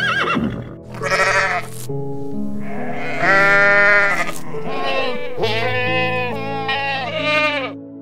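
A goat or sheep bleating, four long calls in a row, over steady background music.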